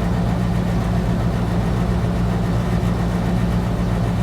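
Steady low-pitched mechanical hum, unchanging throughout, of the kind an idling engine or running machine makes.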